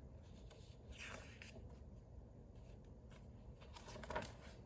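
Near silence: low room tone with a few faint rustles, the most distinct a little after four seconds in.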